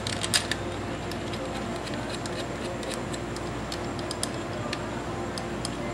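Small metallic clicks and taps of cam holder bolts being set into the motorcycle's cylinder head and threaded in by hand. The clicks are scattered and come thickest near the start, over a steady low hum.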